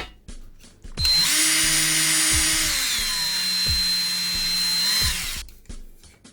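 TOTAL P20S 20 V cordless drill running a hole saw into a thin iron sheet. The motor whine starts about a second in, drops in pitch partway through as the cutter loads, and rises again just before it stops; a few light clicks come before and after.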